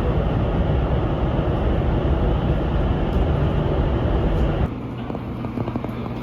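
Inside a GTX-A express train car running: a loud, steady, deep running rumble. About four and a half seconds in it cuts abruptly to a quieter steady hum with a few faint ticks.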